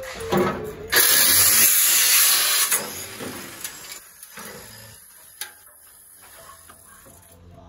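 Angle grinder with a cut-off disc cutting through car-body sheet steel in one loud burst of about two seconds, starting abruptly about a second in, followed by scattered light metal knocks and a sharp click as the cut panel is handled.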